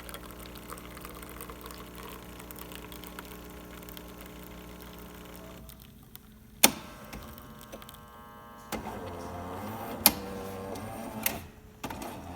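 Jura Impressa Z6 super-automatic espresso machine brewing a shot: its pump hums steadily and stops about six seconds in. Then come sharp clicks and a motor whirring as the machine finishes its brew cycle.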